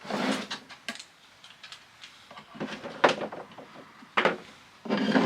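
Small plywood drawers sliding in and out of a plywood chest, with several short wooden scrapes and knocks as they are pushed home and tested for a flush fit.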